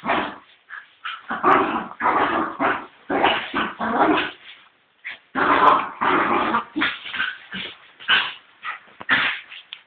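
Fox terrier growling and yipping in rapid short bursts while fighting with a cat, with a brief pause about halfway through.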